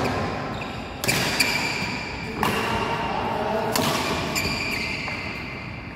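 Badminton rally: rackets striking a shuttlecock with sharp cracks, the main hits about every second and a half and a couple of lighter ones in between, each echoing through a large hall.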